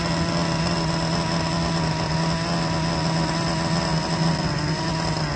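Traxxas TRX 3.3 two-stroke nitro engine idling steadily at an even pitch during its break-in runs.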